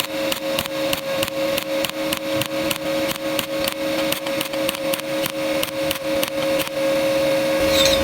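Pulsed TIG welding arc: regular sharp ticks, about four to five a second, over a steady electrical hum. The ticking stops near the end.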